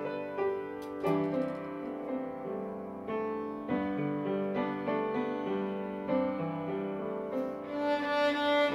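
Flute, violin and piano playing a slow hymn arrangement in held, legato notes. A second bowed string instrument joins near the end, and the ensemble grows fuller and louder.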